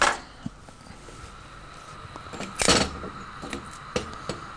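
Kitchenware being handled: two short clattering knocks, the second about two and a half seconds in, and a few light clicks, over a faint steady high tone.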